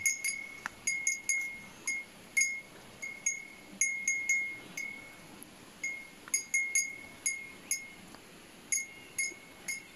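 Cowbell on a cow's neck clinking irregularly as the animal moves, a single ringing metal tone struck roughly twice a second with brief lulls.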